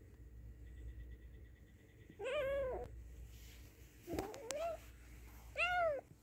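Young tabby-and-white kitten meowing three times, each short call rising and then falling in pitch.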